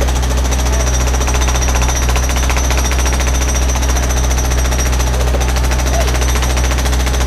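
Rapid, steady hammering from a hydraulic hammer on a mini excavator's arm, driving a steel foundation pier into the ground, over the hum of the excavator's engine.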